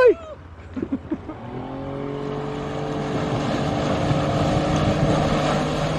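Small boat's outboard motor running steadily and growing louder over a few seconds as it pulls a wakeboarder up out of the water.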